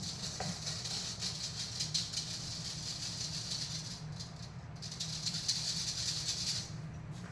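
Dry granulated sugar being worked in a bowl, making a fast, continuous rattling hiss like a shaken maraca. It eases off briefly about four seconds in, then picks up again and dies down near the end.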